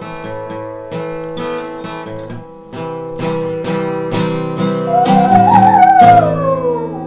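Acoustic guitar strumming chords. About five seconds in, a dog howls along, one long wavering howl that slides down in pitch and is the loudest sound.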